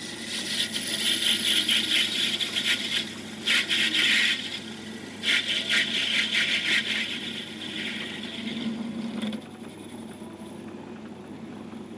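Hand-held tool scraping against a small bronze part spinning in a metal-turning lathe, in several rasping strokes that fade out after about seven seconds. The lathe runs with a steady hum throughout.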